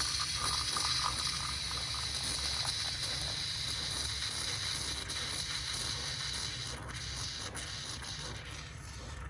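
Bialetti Brikka moka pot hissing just after brewing, a steady hiss that slowly dies away.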